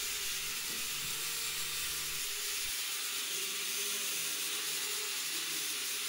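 Mini quadcopter's motors and propellers whirring steadily as it hovers and turns: an even hiss with a faint hum underneath.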